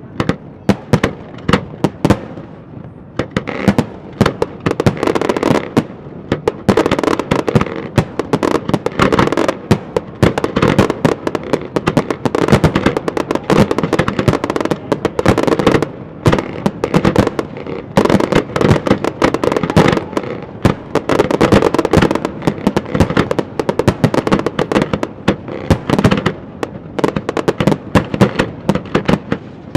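Fireworks display in full barrage: a dense, unbroken run of loud shell bursts and bangs, many per second, with crackling between them.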